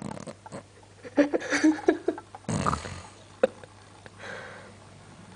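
A sleeping man snoring: irregular snorts and a noisy rasping breath, with a sharp click about three and a half seconds in.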